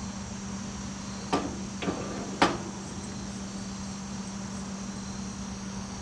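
Three light clicks and knocks of hard parts meeting, the last and loudest about two and a half seconds in, as the hood ornament is test-fitted onto the radiator cap. Under them runs a steady low hum with a high whine.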